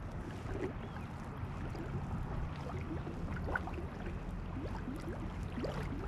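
Small irregular water plops and gurgles, many short rising blips a fraction of a second apart, over a low steady rumble.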